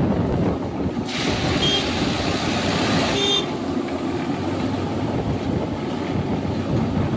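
Unimat track tamping machine working, with a steady mechanical running noise. Two short high-pitched tones sound about a second and a half apart near the start.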